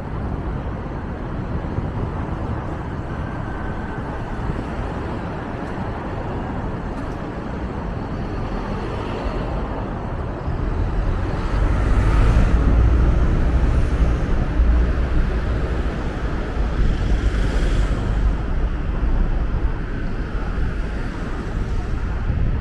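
Street traffic noise from passing cars. A louder low rumble sets in about halfway through and lasts to the end.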